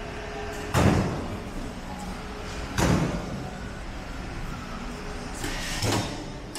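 Three sudden loud thuds, about two seconds apart, each ringing out briefly, over a steady low hum.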